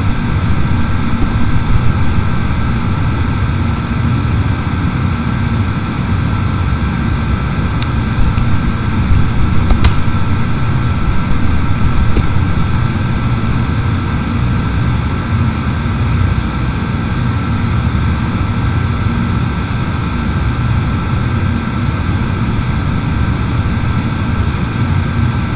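Steady, loud machine-like hum and hiss, heaviest in the low end, with several thin steady whining tones above it. A few sharp clicks come around ten and twelve seconds in.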